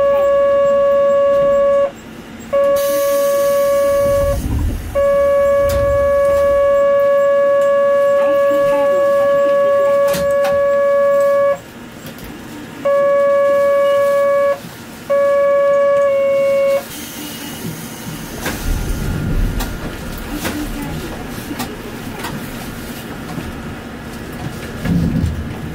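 Electric horn or buzzer sounding one steady pitch in five long blasts of uneven length, the longest about six and a half seconds. After it stops, the tram's running rumble rises as it pulls away from the stop.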